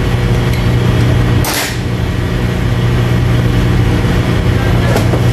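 Steady low hum of a ship's machinery and ventilation, with a short burst of noise about a second and a half in.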